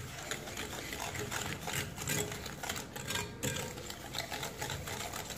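Hand whisk beating eggs and sugar in a glass bowl: rapid, continuous clicking and tapping of the whisk against the glass as the sugar is mixed in to dissolve.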